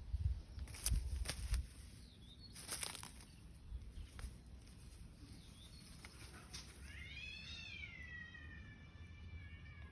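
A few sharp knocks and rustles in the first few seconds, then a cat meowing: one long drawn-out call starting about seven seconds in, rising and then slowly falling in pitch.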